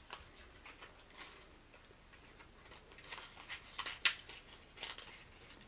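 Faint crinkling and clicking of a small clear plastic lure package being handled. The light crackles come thicker from about three seconds in.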